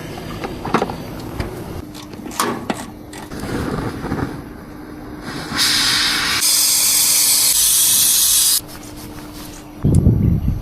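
Refrigerant gas hissing loudly for about three seconds, starting about halfway through, while charging a Daikin VRF system, over a steady low hum. Scattered clicks and knocks come before it, and a loud low thud comes near the end.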